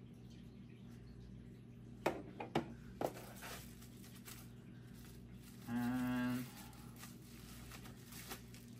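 Clear plastic wrapping crinkling and clicking as a small packed accessory is handled, with a few sharp crackles about two to three seconds in. Just past the middle comes a short, steady hummed tone lasting under a second, the loudest sound here.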